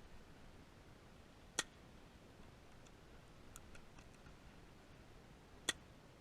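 Two sharp clicks about four seconds apart over near silence, with a few faint ticks between them.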